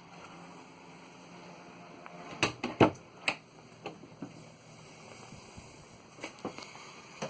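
A handful of sharp knocks and clicks, bunched together about two and a half seconds in and again more lightly near the end, over a faint steady hiss.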